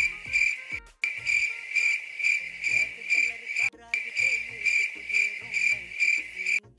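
Cricket chirping sound effect: steady, evenly spaced high chirps about three a second, with short breaks about a second in, just before the four-second mark and near the end where the loop restarts.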